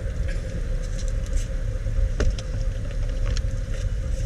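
Car engine idling, heard from inside the cabin: a steady low rumble with a faint steady hum above it and a few light clicks.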